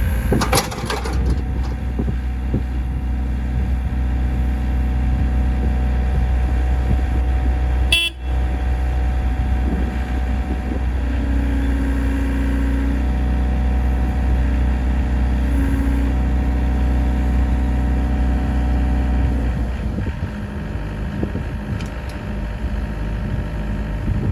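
Volvo ECR58 mini excavator's diesel engine running steadily. A steady higher tone rides over it through the middle stretch, and there is a short click and dropout about eight seconds in.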